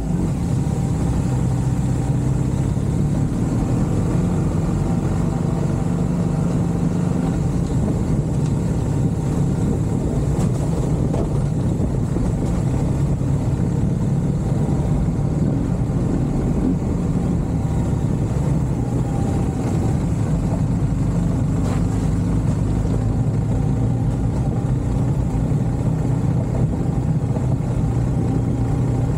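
A motor vehicle's engine running at a steady speed, a continuous low drone with no change in pitch.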